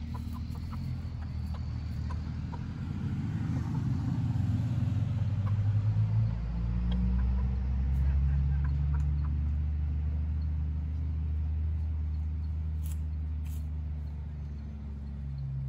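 A motor vehicle engine running with a low, steady hum. Its pitch shifts about six seconds in, then holds steady.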